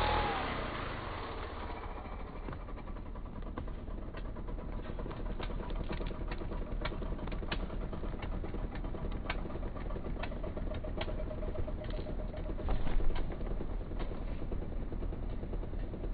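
A chainsaw idles steadily while a series of sharp cracks comes from the beech's hinge wood breaking as the tree is felled. The cracks come closer together toward the middle, and there is a louder burst about three-quarters of the way through.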